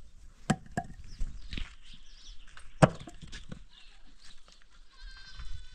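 Several sharp knocks of a long-handled shovel and stones being worked in stony ground, the loudest about three seconds in. A faint high call sounds near the end.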